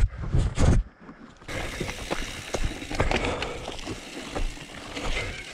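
Trek Fuel EX 7 mountain bike riding down a rocky trail: tyres rolling and crunching over rock, with frequent short knocks and rattles from the bike. There is a low rumble in the first second.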